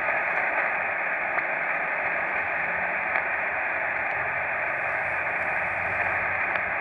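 Radio receiver's speaker hissing with steady band-limited static, a faint steady tone running through it, while the operator listens for an answer to a CQ call.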